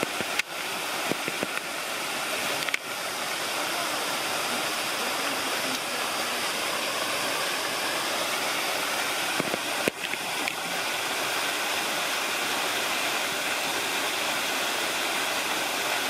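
Artificial waterfalls pouring down a rock face into a pool, a steady rushing of water. A few brief clicks cut through it, about half a second, three seconds and ten seconds in.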